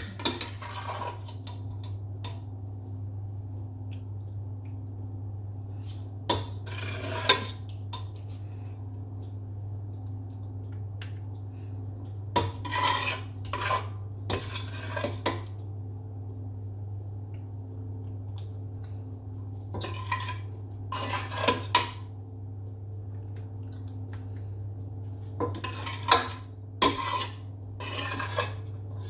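A kitchen utensil scraping and clinking against a pan and baking tray in several short bouts as sauce is scooped out and spread over lasagna sheets, over a steady low hum.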